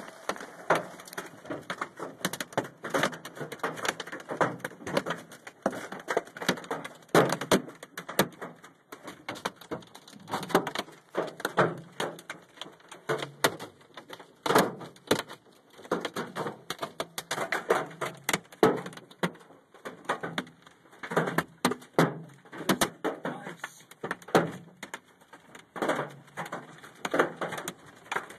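Golf-ball-size hail beating on a truck: a dense, irregular clatter of hard knocks, some much louder than others.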